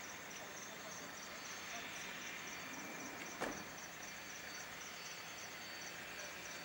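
Crickets chirping in a steady, evenly repeating rhythm over the faint, steady hiss of a Beechjet 400A's twin turbofans taxiing. A single sharp click sounds about halfway through.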